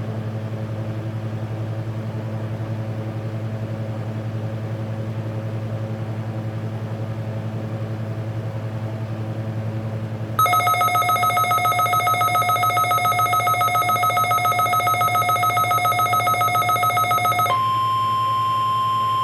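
Emergency alert tones on a NOAA Weather Radio weekly test. A steady low hum runs for about ten seconds, then a loud, fast-warbling electronic alert tone with several pitches sounds for about seven seconds. Near the end it gives way to a steady single tone near 1 kHz, the weather radio warning alarm tone.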